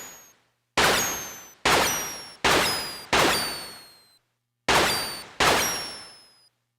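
Roland D-05 sound module playing a sampled percussive noise hit from a sound card, triggered six times at uneven intervals. Each hit starts sharply and dies away within about a second, with a thin falling whistle high above it.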